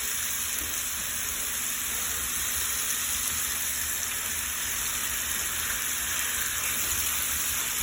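Pieces of chicken breast sizzling steadily in hot oil in a frying pan.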